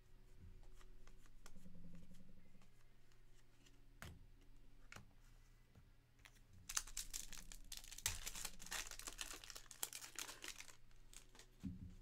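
Foil trading-card pack being torn open and crinkled: a few light clicks, then about four seconds of dense crackling starting a little past the middle.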